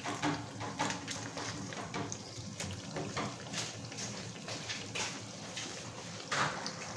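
Banana spring rolls (turon) frying in hot oil with caramelizing brown sugar in a pan: a steady sizzle full of small, irregular crackles and pops.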